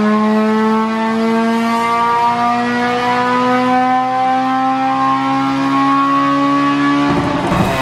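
Stock Honda K20A2 four-cylinder in an Acura RSX race car, breathing through a 55 mm intake restrictor, at full throttle on a chassis dyno: the engine note climbs slowly and steadily through a power pull. Near the end comes a brief rush of noise, and the revs begin to fall as the pull ends.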